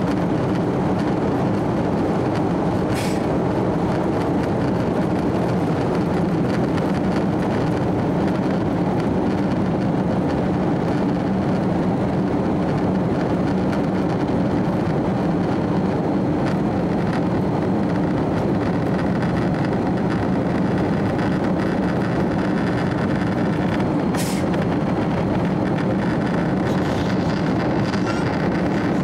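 Inside the cabin of an Airbus A330-300 taking off: its Rolls-Royce Trent 700 engines at takeoff thrust give a steady rushing noise through liftoff and the initial climb. Two brief clicks cut through, one about three seconds in and one later on.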